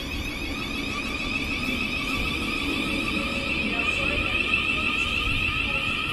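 Thameslink Class 700 electric multiple unit moving along the platform, its traction equipment giving a steady high-pitched electric whine made of several tones over a low rumble of wheels on the track.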